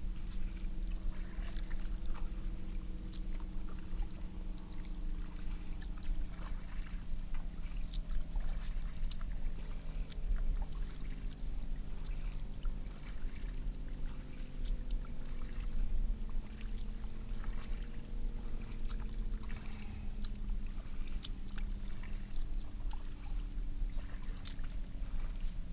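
Kayak paddle dipping into calm lake water with small splashes and drips, over a steady motor drone whose pitch slowly falls in the middle.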